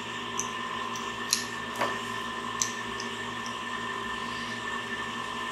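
Fingers picking at the small plastic-wrapped parts of a little stand: a few sharp, small clicks and crinkles in the first few seconds, then only handling. A steady background hum runs under it.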